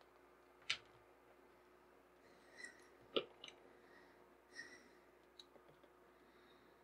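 Faint handling of a leather rifle sling strap while Chicago screws are fitted through it: a few small clicks of the screw parts, the sharpest about three seconds in, and soft rubbing of the leather.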